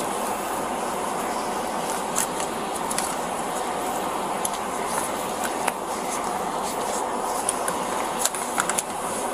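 Steady outdoor background rumble picked up by a body-worn microphone, with scattered light rustles and clicks of clothing and gear during a pat-down search.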